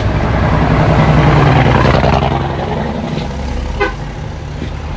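Heavy dump truck engines running as loaded trucks pass close by on a dirt road, loudest for the first couple of seconds and then easing off. A short horn toot comes about four seconds in.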